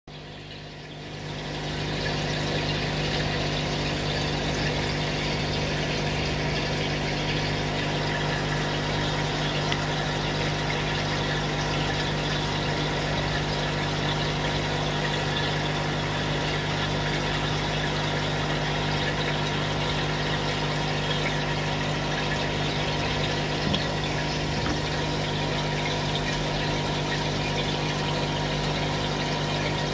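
Steady machine hum with a constant low tone and an even hiss, fading in over the first couple of seconds and then holding level.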